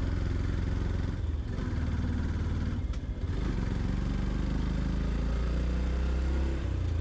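Yamaha FZ-X motorcycle's 149 cc single-cylinder engine running steadily under way, with a mixed haze of wind and road noise over it. The engine note dips briefly about a second in and again around three seconds in.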